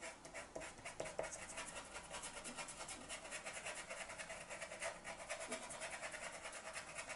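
Derwent graphite-grey pastel pencil scratching across PastelMat paper in quick short back-and-forth strokes, about five a second, shading a dark patch.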